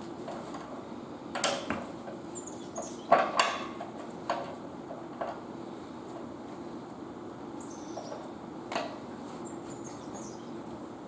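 Hand work on plumbing: a handful of sharp knocks and clanks, the loudest about three seconds in, with a few short, high falling squeaks, over a faint steady hum.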